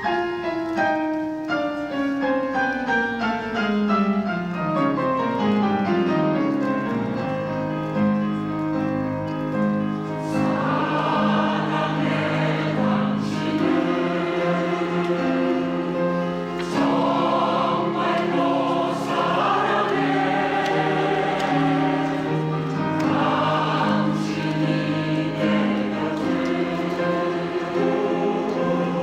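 Women's choir singing with piano accompaniment. A piano introduction of falling runs opens, and the voices come in about ten seconds in.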